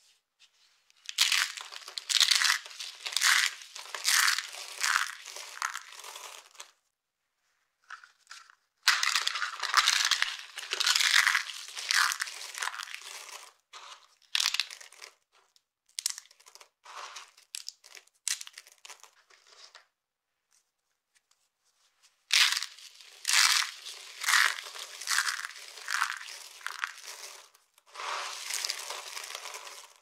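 Dry soap spirals and flakes being crushed and broken apart by hand, crackling and crunching. It comes in spells of several seconds, with short pauses about seven and twenty seconds in.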